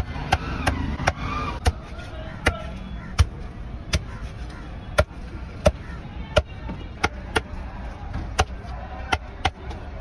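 Large knife chopping dolphin fish into chunks on a chopping block: sharp chops at an uneven pace, about one or two a second.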